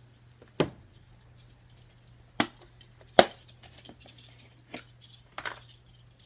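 Metal measuring spoons and spice jars clinking as seasonings are measured out: a handful of sharp, separate clinks and taps spread over several seconds, over a faint low steady hum.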